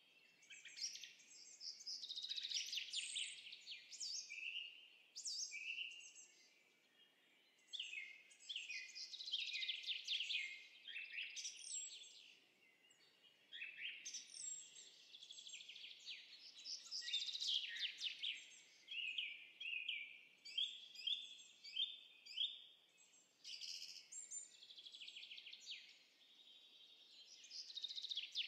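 Songbirds chirping and trilling from a stock birdsong sound effect, in bursts of quick high notes with short pauses between.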